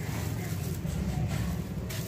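Wet sand-cement chunk crumbling as hands squeeze and break it in a tub of muddy water: soft gritty crunching and wet squishing, over a steady low rumble.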